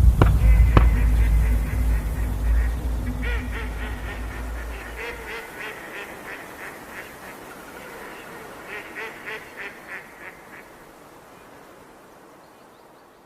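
A flock of geese honking in clusters of repeated calls, fading out gradually. For the first few seconds a loud deep rumble lies under the calls and dies away.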